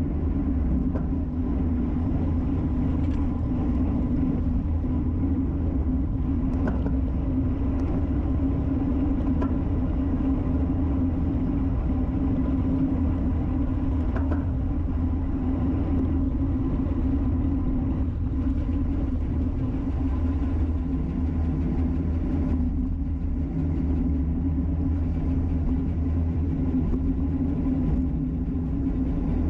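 Steady wind rush and road rumble on a bicycle-mounted camera's microphone while riding at time-trial speed.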